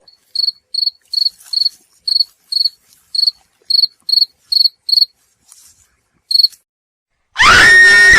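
Cricket chirping sound effect: short, high, identical chirps about twice a second, then a pause and one last chirp. Near the end a loud, different sound cuts in abruptly.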